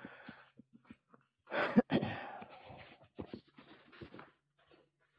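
Fabric backpack and its straps being handled close to the microphone: irregular rustling with scattered small clicks, and a sharp click near the middle as the loudest moment.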